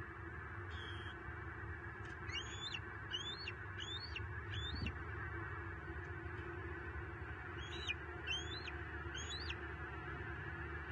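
A small bird calling, a quick series of short high notes that each sweep up and then drop: four calls, a pause, then three more. Behind them runs a steady outdoor hiss.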